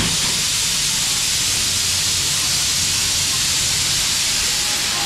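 Steam locomotive letting off steam: a loud, steady hiss.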